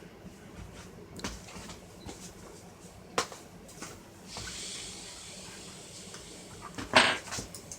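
Handling sounds of radio parts and tools on a workbench: scattered clicks and knocks, a soft rustle a little past the middle, and a louder knock near the end.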